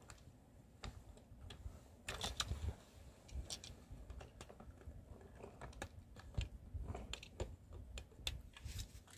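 Faint, irregular plastic clicks and rattles of a toy C57 steam locomotive and its train rolling along blue plastic Plarail track, with a denser clatter about two seconds in.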